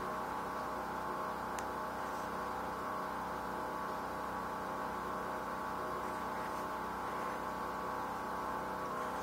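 A steady droning hum made of several held tones, with one faint click about one and a half seconds in.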